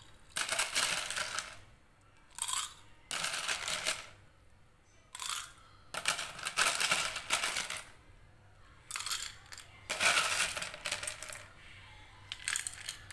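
Ice cubes being scooped and dropped into a glass of drink, clattering and clinking in repeated short bursts.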